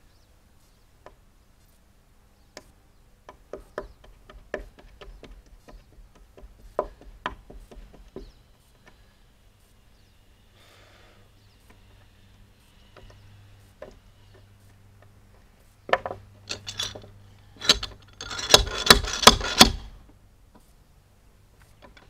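Hand tools scraping and tapping at a nail buried in a cedar cant, with irregular small clicks, then a quick run of loud, sharp strikes near the end as the nail is dug out of the wood.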